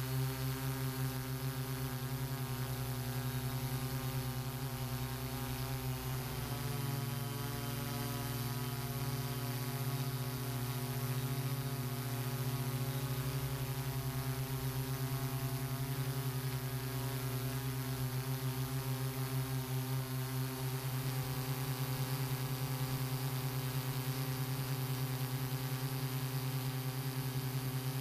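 Steady hum of a hexacopter's electric motors and propellers in flight, made of many stacked tones. Its pitch shifts slightly about six seconds in and again about twenty-one seconds in.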